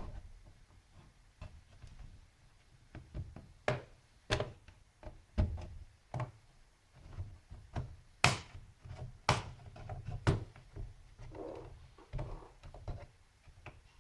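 The small plastic snap latches of a Samsung NP305V laptop case clicking loose one after another as the edge is pried around. The clicks and knocks come irregularly, with the loudest few about eight to ten seconds in.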